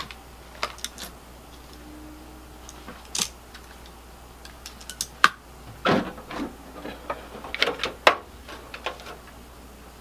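Clicks, knocks and scrapes of a Dell T320 tower server's side cover being unlatched at its release handle and lifted off the chassis. The handling sounds are scattered, busiest in the second half.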